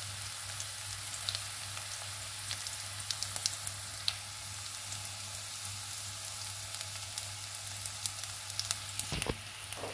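Sliced onions, cumin seeds and ginger frying in hot oil in an aluminium kadhai: a steady sizzle with scattered small pops and crackles.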